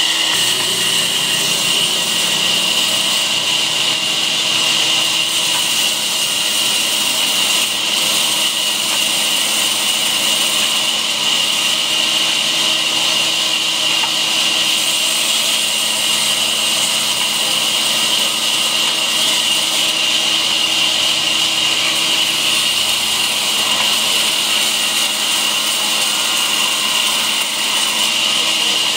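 Large band saw running, its blade cutting through a block of wood. The noise is steady throughout, with a high steady whine.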